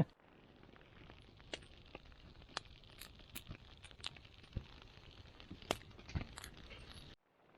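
Scallops frying in olive oil in a pan over a campfire: a steady low sizzle with scattered sharp pops and crackles, cutting off suddenly near the end.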